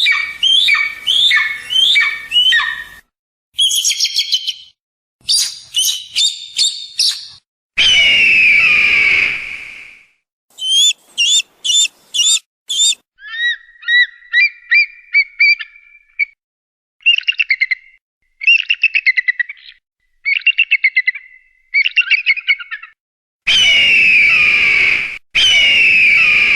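Eagle and hawk calls played as a string of separate takes with silent gaps between them. There are quick series of sharp down-slurred whistled notes, chattering groups of short calls, and three long, high screams that slide downward: one about eight seconds in and two close together near the end.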